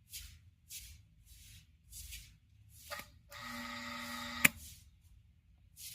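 Washing-machine motor, wired through its capacitor, switched on briefly with a click about 3 s in and running with a steady electric hum for just over a second, cut off by a sharp snap as the wire contact breaks. Soft rustling comes before it while the wires are handled.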